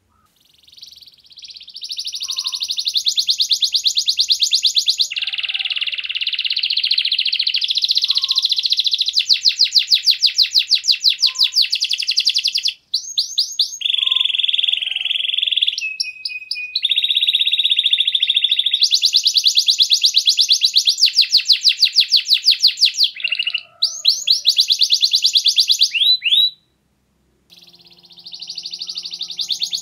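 Domestic canary singing a long, unbroken song of rapid trills of repeated notes, steady rolls and quick rising whistles, with a break of about a second near the end.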